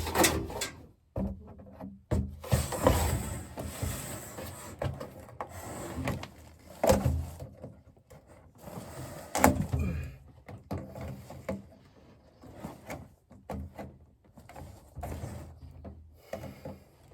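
Irregular knocks, scrapes and rubbing from hands working on and fitting dryer vent ductwork, with the sharpest knocks in the first ten seconds and quieter rubbing after that.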